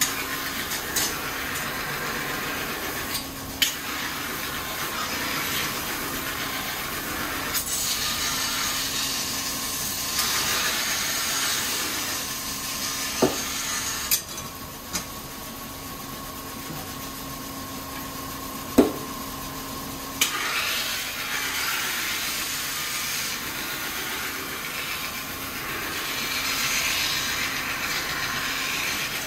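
Kitchen knife blade being ground on a motor-driven rotating whetstone wheel: long scraping hiss in three passes, the first briefly at the start, the others several seconds each, over the steady hum of the machine, with a few short clicks between passes.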